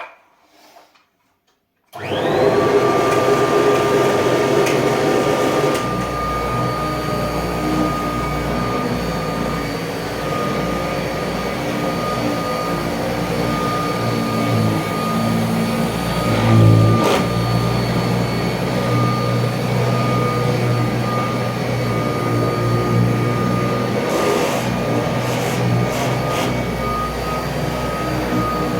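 Kirby Tradition upright vacuum cleaner switched on about two seconds in, its motor whine rising quickly to a steady high tone, then running steadily. A rattle from the loose handle-to-machine connection runs along with it.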